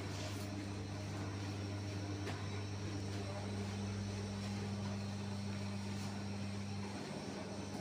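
Steady low machine hum from a revolving-hearth bread oven in a bakery. A second, higher hum joins about two seconds in and drops away near the end.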